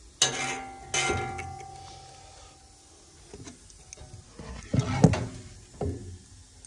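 Handling knocks on a wide belt sander's steel infeed rollers and table as an MDF board is moved over them. First come two sharp knocks about three quarters of a second apart, each leaving a short metallic ring. Around five seconds in there is a cluster of duller knocks and bumps, and one more soon after.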